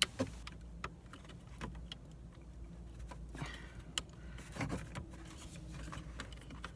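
Scattered faint clicks and small plastic rattles of hands working at a car's dashboard, unplugging the clock's wiring connector.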